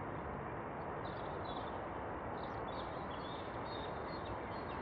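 Steady rushing noise of a landing Airbus A320's jet engines as it touches down and rolls out, with small birds chirping over it from about a second in.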